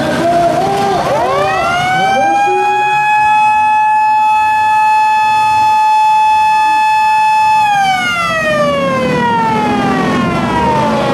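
A siren winds up over about a second, holds one steady note for several seconds, then winds slowly down toward the end: the signal that halts a demolition-derby heat. Demolition-derby car engines revving are heard underneath at the start.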